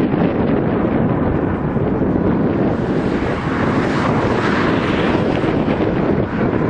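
Dash 8 Q400's two turboprop engines and propellers passing low overhead on final approach: a loud, steady noise that grows brighter about three seconds in as the aircraft comes closest. Wind buffets the microphone throughout.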